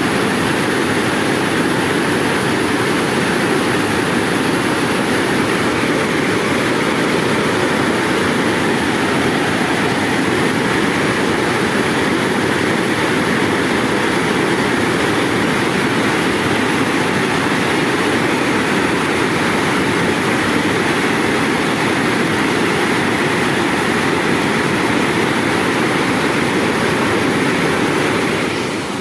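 Steady rushing roar of a river in spate pouring over a dam weir as a waterfall, unbroken, with a slight dip near the end.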